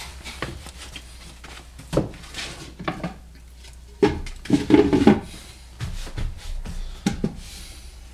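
Handling noises around a potter's wheel: irregular knocks, clatters and scrapes of tools and a bat being moved on the wheel and splash pan, busiest and loudest about four to five seconds in, over a low steady hum.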